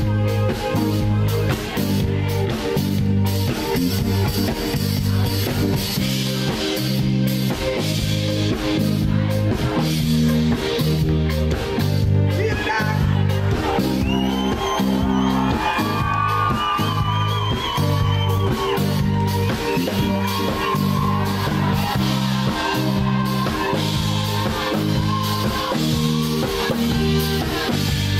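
Pop-rock music with guitar, drum kit and a steady, repeating bass line. A singing voice carries a melody over it from about halfway through.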